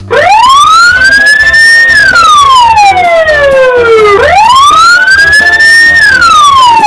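Emergency-vehicle siren in a wail pattern, loud: one tone climbs over about two seconds, then slides slowly back down, and does this twice.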